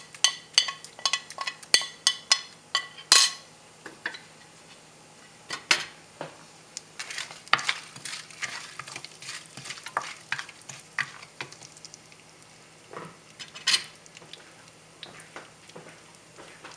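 Whole spices (cumin seeds, cloves, black pepper, cinnamon sticks and dried red chillies) frying in hot oil in a pan while a spoon stirs and scrapes them. Quick clicks and taps come thick for the first few seconds, then thin out and get quieter.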